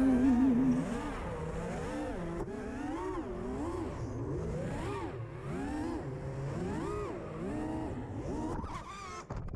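Brushless motors and tri-blade props of a 5-inch FPV freestyle quadcopter (DYS Fire 2600kv motors) whining, their pitch rising and falling about once a second as the throttle is punched and eased. The last of a pop song is heard in the first second, then stops.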